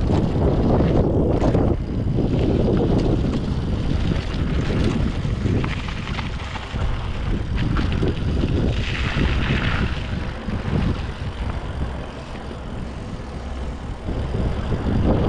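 Wind buffeting the microphone during a fast downhill ride: a rough, gusting rush. Scattered clicks and rattles sit under it, and a brief higher hiss comes about nine seconds in.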